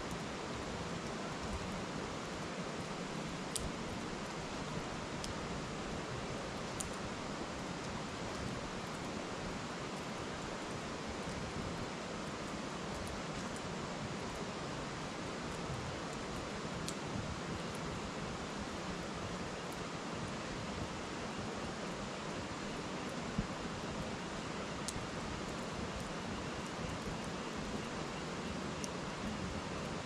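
Steady rush of a river, with a scattering of sharp crackles and pops from firewood burning in a metal fire bowl.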